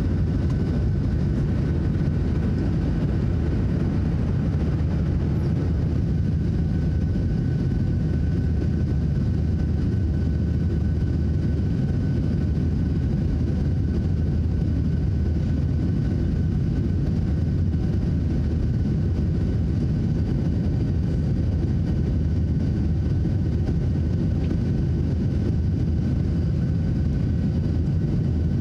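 Cabin noise of a Boeing 737-700 in motion: its CFM56-7B turbofan engines running steadily under a deep rumble of engine and airflow noise, with a faint steady whine on top.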